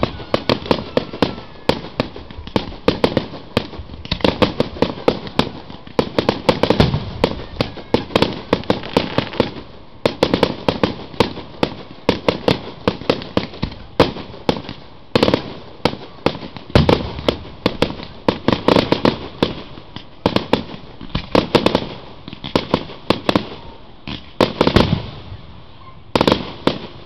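Aerial fireworks display: shells bursting and crackling in rapid clusters, with heavier booms every few seconds. The barrage stops shortly before the end.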